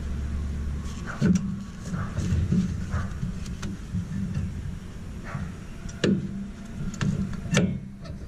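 A series of sharp metal clicks and knocks, roughly nine, irregularly spaced, from brake caliper hardware and tools being handled during reassembly of a rear disc brake. A steady low hum runs underneath.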